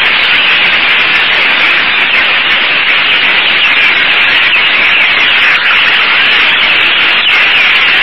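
Loud, steady, dense din of a vast swarm in flight, a hissing chatter made up of countless overlapping tiny calls or wingbeats.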